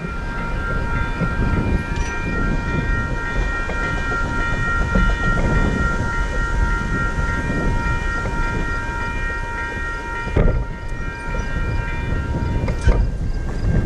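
Railway level-crossing warning bell ringing steadily with its lights still flashing after a train has gone by, over a low rumble. Most of the ringing cuts off about ten seconds in, and the last of it stops near the end.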